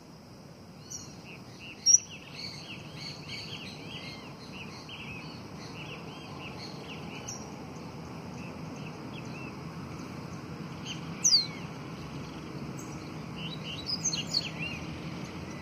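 Caged caboclinho seedeater warming up its song: a long run of quick, short arched chirps through the first half, a loud downward-sweeping whistle about eleven seconds in, and a few sharp notes near the end.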